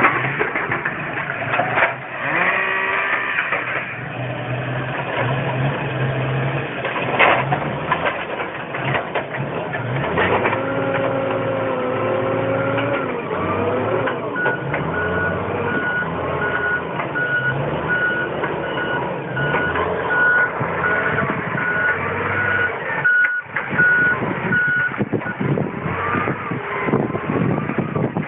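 New Holland wheel loader's diesel engine running and changing pitch as it works, with its reversing alarm beeping repeatedly for about ten seconds from the middle of the stretch.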